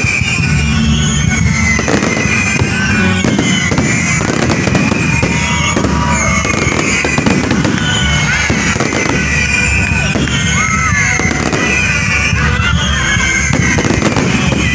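Fireworks display: aerial shells bursting one after another in dense bangs and crackle, with music playing underneath.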